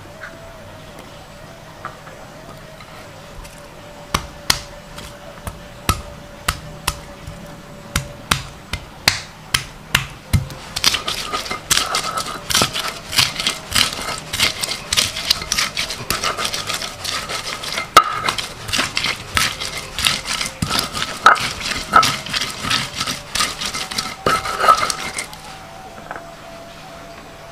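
Round hand stone knocking and grinding shallots and garlic on a flat stone grinding slab (batu giling). First single knocks about once a second, then from about ten seconds in a quicker run of knocks and scraping grinds as they are crushed into the spice paste, stopping shortly before the end.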